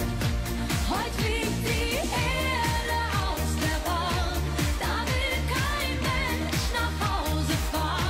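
A woman singing a German pop song over a band with drums, bass and electric guitar, driven by a steady dance beat.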